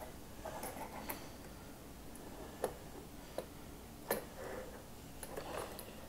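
Faint, scattered clicks and taps of small diecast toy motorcycles being handled and moved about on a plastic diorama, the sharpest about four seconds in.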